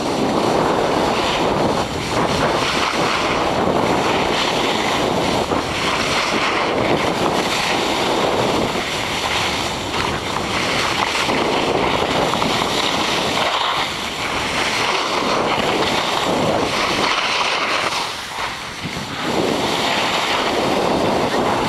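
Wind rushing over the camera's microphone and skis scraping over packed snow during a downhill run. It swells and eases every few seconds.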